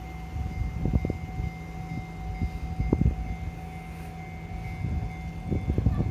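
Japanese level-crossing warning bell ringing steadily, with irregular low rumbles and knocks about a second in, near three seconds, and in a cluster near the end.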